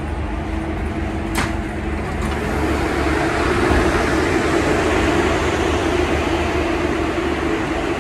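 Steady hum and hiss of an old MBTA Red Line subway train standing at a station with its doors open. A steady tone in the hum grows louder about two and a half seconds in, and there is one sharp click at about a second and a half.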